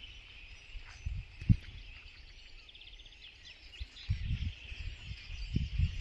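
Outdoor ambience: gusts of wind buffeting the microphone, growing stronger near the end, over a faint steady high-pitched chorus, with a short quick trill and a few faint bird chirps in the middle and one low thump early on.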